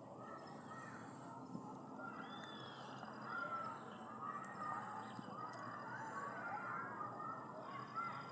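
A dense, continuous chorus of animal calls in the forest, many short calls overlapping, a little louder from about three seconds in.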